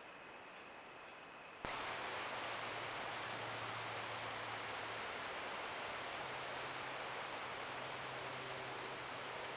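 Faint chirring of night insects over a low hiss, then, under two seconds in, a sudden jump to a louder, steady hiss with a faint low hum: the trail camera's own microphone noise.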